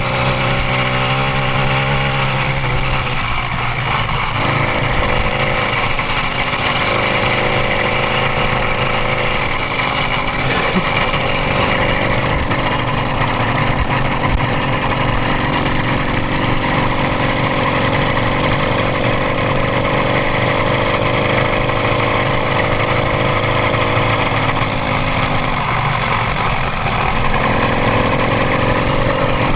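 Motorized bicycle's 66cc two-stroke kit engine running steadily, pulling the bike up an uphill stretch of trail.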